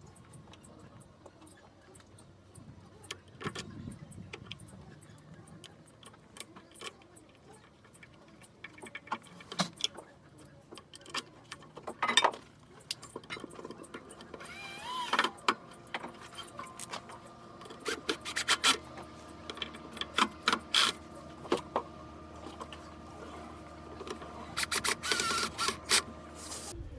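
Irregular clicks, taps and knocks of tools and parts being handled during a repair, with a faint steady hum in the second half that stops suddenly near the end.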